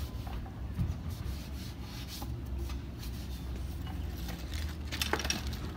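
Small detailing brush scrubbing a wet wheel and brake caliper, its bristles rubbing in short strokes, over a low steady rumble. A few sharp ticks come about five seconds in.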